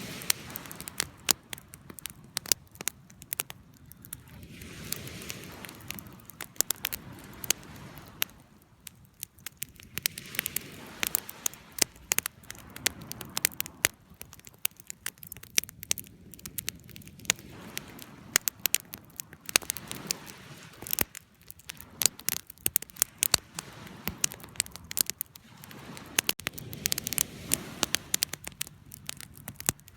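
Wood campfire burning, with frequent sharp crackles and pops over a low, steady hiss and rumble of flames that swells and eases every few seconds.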